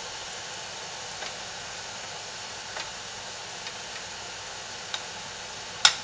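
Double boiler heating on the stove, a steady hiss with a few light, scattered ticks as shea butter and oils melt in the glass bowl. Near the end a spatula is set into the glass bowl with one sharp click.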